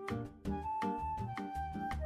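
Background music: a light instrumental tune with a steady beat.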